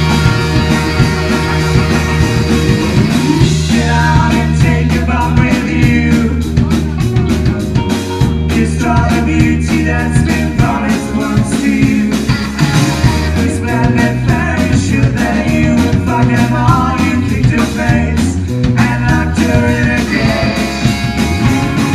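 Live band playing a blues-rock song, with a steady drum beat under bass and a wavering lead line.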